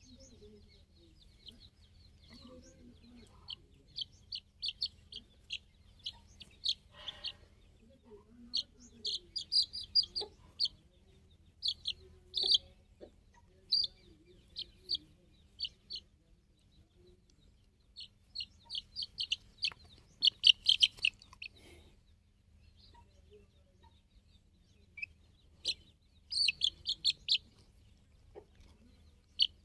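Chicken chicks peeping: runs of short, high peeps, several a second, with pauses between the runs.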